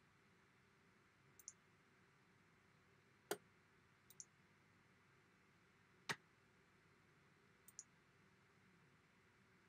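Sparse sharp clicks over near silence: three faint, high double ticks, and two louder single clicks about a second and a half apart near the middle.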